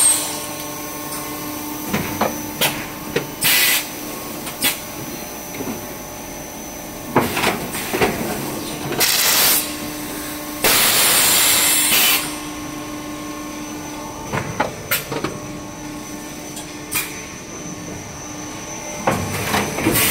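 Tongda HTSII-5L hydraulic extrusion blow moulding machine running through its moulding cycle. A steady hum is broken by several hissing blasts of air, the longest lasting over a second, and by scattered sharp clacks as the moulds and carriage move.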